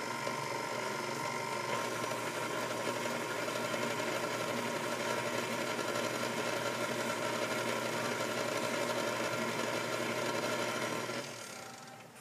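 KitchenAid Classic stand mixer running steadily, its beater mixing buttermilk into the creamed shortening, sugar and eggs. The motor stops near the end.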